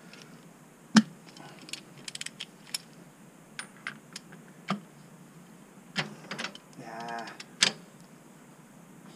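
Hand tools clinking and knocking on a motorcycle's exposed clutch as a tool is fitted to the tight clutch centre nut: irregular sharp metal clicks, the loudest about a second in, with a quick run of them near the start and another sharp one near the end.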